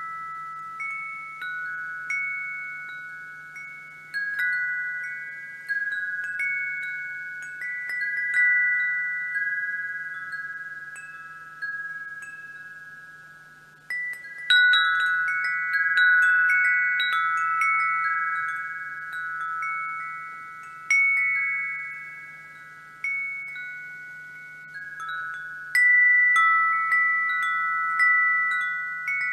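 A wind chime ringing: a few tuned notes struck at irregular moments, each ringing on and fading slowly, with the loudest flurries of strikes about halfway through and again near the end. A faint steady low hum lies underneath.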